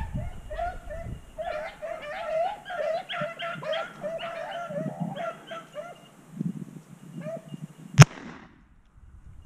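Rabbit hounds baying on a chase, a run of repeated high yelping cries lasting several seconds, then a single shotgun shot about eight seconds in, the loudest sound.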